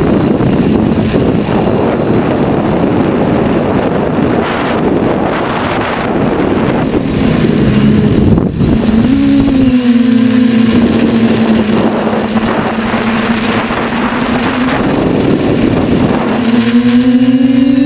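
TBS Discovery quadcopter's electric motors and propellers in flight, heard through the onboard camera, with heavy wind rush over the microphone for the first half. About nine seconds in the rush eases and a steady propeller hum comes through, rising in pitch near the end as the motors speed up.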